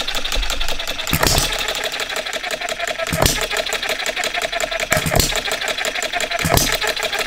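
Philip Duclos Odds n Ends model hit-and-miss engine running: a fast, even clatter of small ticks as the flywheels coast, with a firing stroke knocking about every one and a half to two seconds, four times. The engine runs on newly fitted cast iron piston rings that have not yet run in.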